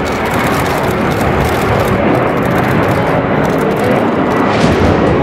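Boeing 747 airliner's jet engines at takeoff power as it climbs away after lift-off: a loud, steady rushing rumble that grows slightly louder.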